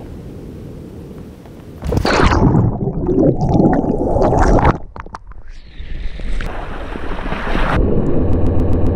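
River water splashing and gurgling close to the camera as a swimmer goes in and comes up. A low steady rush at first, loud splashing starting suddenly about two seconds in, a short lull around five seconds, then steady churning water.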